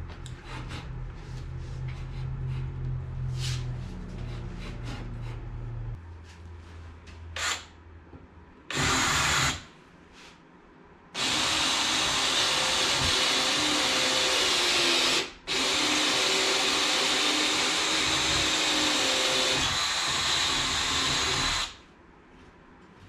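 Cordless drill working through the mated steel landing-gear leg and weldment, opening the pilot hole to full size. A short burst comes about nine seconds in, then two long steady runs of about four and six seconds with a brief stop between them. Before that there are scattered clicks and handling sounds.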